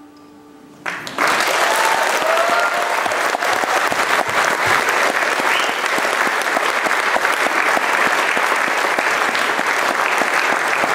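Audience applauding, breaking out suddenly about a second in and going on steadily.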